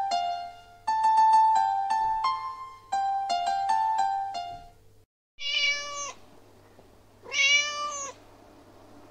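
Background music: a bright piano melody of short notes, which stops about five seconds in. Then a cat meows twice, each meow just under a second long.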